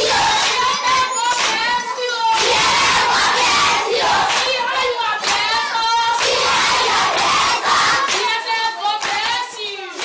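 A group of young children shouting excitedly together, with hand clapping mixed in.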